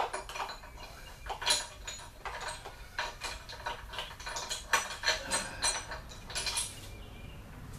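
Metal chain clinking and rattling in irregular clusters of short clicks as it is handled.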